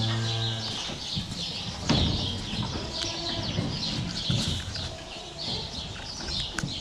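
Small birds chirping over and over, with a cow's low moo trailing off under a second in, and straw rustling with a few knocks in between.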